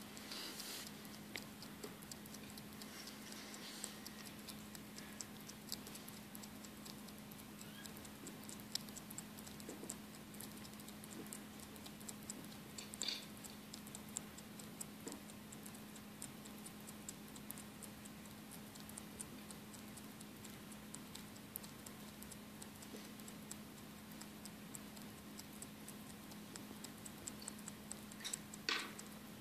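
Hoary bat chewing a mealworm: a fast, irregular run of small crunching clicks, with a couple of louder clicks, one near the middle and one near the end.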